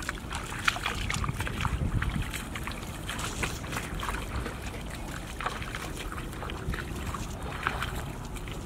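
Shallow water splashing and sloshing in short, irregular splashes, over a steady low rumble of wind on the microphone.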